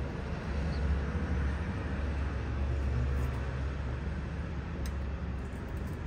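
Steady low background rumble, an even noise with no clear pitch, with a faint tick about five seconds in.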